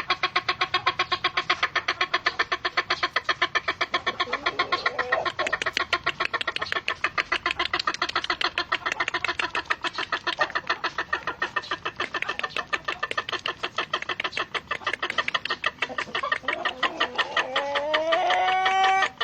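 Ayam ketawa (laughing chicken) rooster crowing: a long, rapid chatter of staccato notes, many a second, like laughter, going on without a break for the whole stretch. Near the end it turns into a drawn-out, rising crow note.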